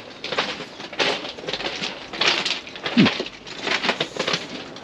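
Footsteps crunching on loose gravel railway ballast at a steady walking pace, with a pigeon cooing once about three seconds in.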